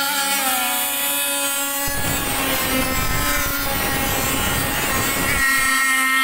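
Zenoah two-stroke gas engine of an RC boat running at speed, a high, buzzing, saw-like note that wavers slightly in pitch. A rough rushing noise joins it for a few seconds in the middle.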